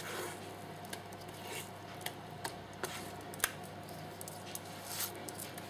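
Thick cake batter being scraped and poured out of a heavy mixing bowl into a cake pan: soft wet squishing with a few light clicks scattered through it.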